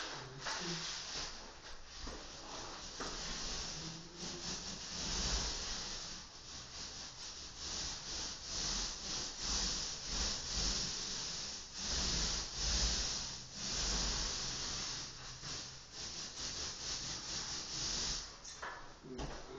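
Repeated rubbing strokes against a surface, coming in uneven swells about every second or so.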